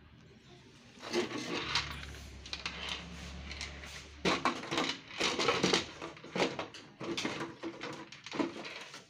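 Clicks, knocks and rattles of plastic printer casing and parts being handled, with a low steady hum underneath for a couple of seconds near the start.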